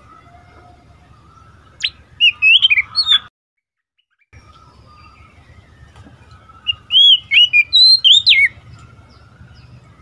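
Oriental magpie-robin singing two short, loud bursts of quick, varied whistled notes, the first about two seconds in and the second about seven seconds in. The sound drops out completely for about a second after the first burst.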